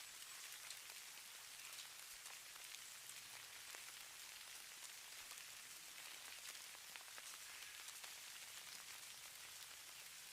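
Fine falling snow pattering on a surface: a faint, steady high hiss made of many tiny ticks.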